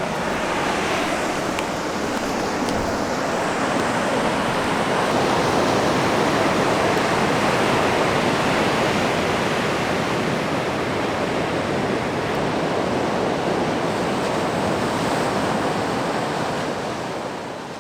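Ocean surf: a steady rush of waves that swells a little midway, then fades out at the end.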